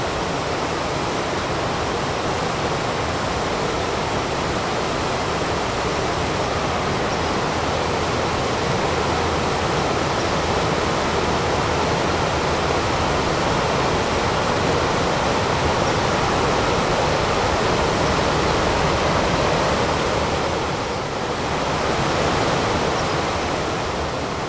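Rushing water of the Rogue River, a steady, even hiss of flowing water that eases briefly about three-quarters of the way through.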